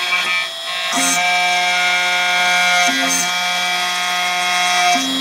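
Homemade CNC mill's 2.2 kW spindle running with a steady, multi-toned machine whine while the mill works the next hole in a steel plate. The lower tones step in pitch about a second in, around three seconds in and near the end, as the machine's moves change.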